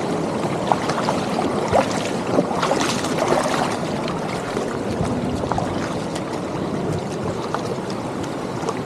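Shallow, stony river flowing steadily, a constant rush of water with many small gurgles and splashes.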